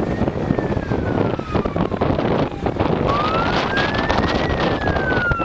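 Gusty wind buffeting the microphone, with a siren wailing over it: its pitch falls slowly, climbs again about three seconds in, then falls once more.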